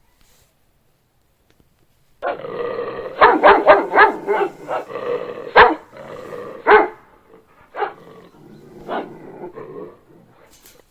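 An angry dog growling, with a run of sharp barks breaking through. It starts about two seconds in, is loudest in the first few seconds, and dies away near the end.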